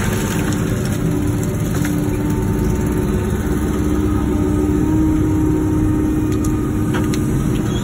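Wacker Neuson ET145 excavator's diesel engine running steadily, with a held tone that rises slightly about five seconds in.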